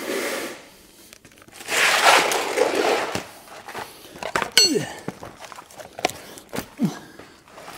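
Hands-on work at a car's front wheel arch: shuffling and scraping, then scattered clicks and a ringing metal clink of tools about halfway through, with a few short falling groans.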